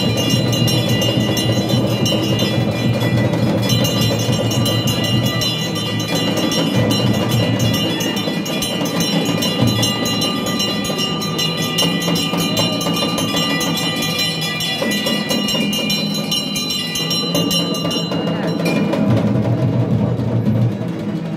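Aarti music in a Hindu temple: bells ringing fast and steadily with drumming, the ringing tones stopping near the end.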